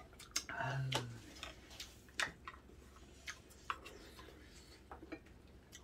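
Scattered light clicks and taps of utensils against dishes during a meal, irregular and faint. A short low 'mm' hum from a person comes about a second in.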